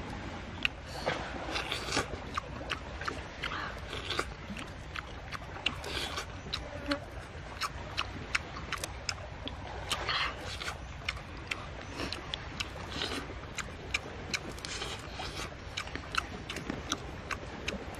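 Cooked sand lobster shell being cracked and peeled by hand and chewed, with many sharp, irregular clicks and crackles of shell and mouth sounds of eating.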